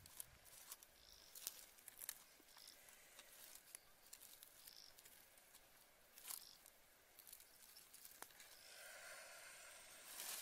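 Near silence with faint rustling and a few light clicks as hands handle fish and chili sauce in a woven bamboo basket on leaves.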